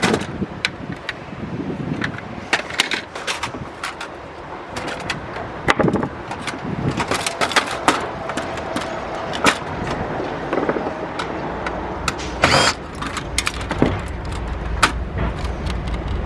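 Irregular clicks, knocks and scraping of metal and plastic parts and tools being handled while a DVD recorder is taken apart. A low steady rumble comes in about two-thirds of the way through.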